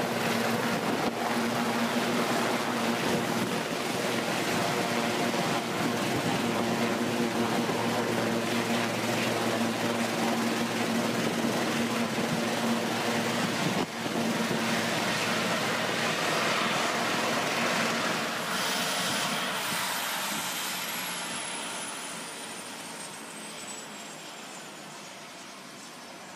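Sikorsky S-76 twin-turbine helicopter hovering in to land, its rotor and engines running loud and steady with a strong low hum. On the ground about two-thirds of the way through, the engines are shut down: a high turbine whine glides steadily down while the rotor noise fades.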